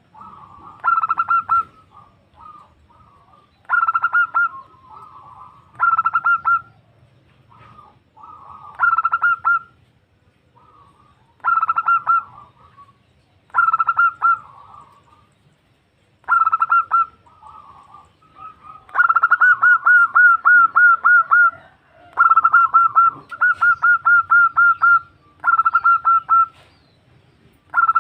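Female zebra dove (perkutut) calling to draw a male: short bursts of rapid, rolling cooing notes about every two seconds, which run into longer strings of notes in the second half.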